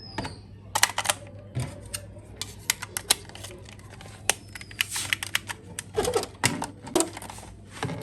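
Irregular sharp clicks and taps of hard plastic being handled, at times several a second, with a few duller knocks about six to seven seconds in.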